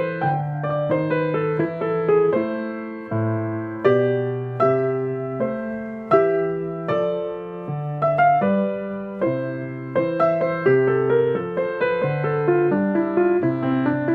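Solo piano playing a gentle piece: a melody of struck notes, each fading away, over lower bass notes held beneath it.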